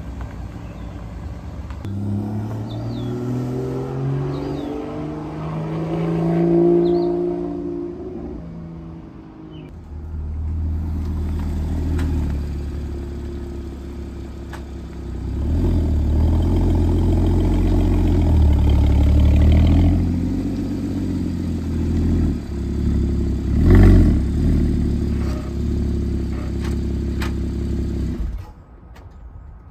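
A 981 Porsche Cayman's flat-six engine revs, its pitch rising as the car pulls away and accelerates, then eases off. It then runs with a low rumble as the car drives up at low speed, with a single knock about three-quarters of the way through, before the engine sound stops shortly before the end.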